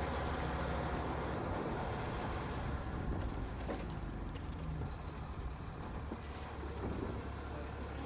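Automated side-loading garbage truck driving along a snowy street, its engine a steady low drone under road noise, easing off a few seconds in as the truck slows toward a cart.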